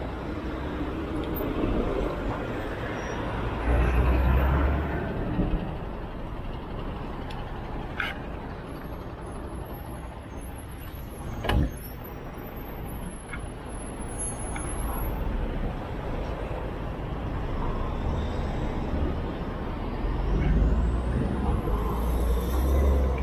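Road traffic noise from a busy city street heard from a moving bicycle, with heavier low rumbles a few seconds in and near the end, and a sharp click a little past halfway.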